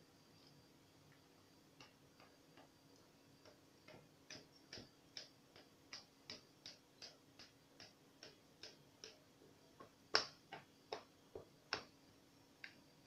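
Faint, sharp clicks of a knife tip striking an aluminium baking pan as a soft cake is cut into squares. The clicks are sparse at first, then come irregularly at about two or three a second, with a few louder clicks near the end.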